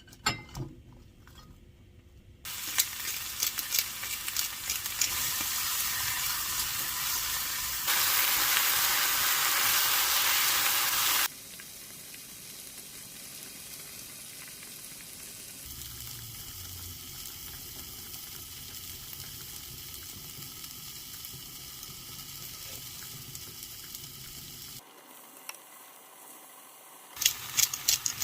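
Food sizzling in a frying pan, in several short clips spliced together, loudest for a few seconds about a third of the way in. Sharp clicks come near the end.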